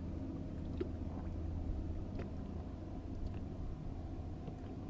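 Steady low hum around a small fishing boat, with a few faint clicks as the bait is slowly reeled in.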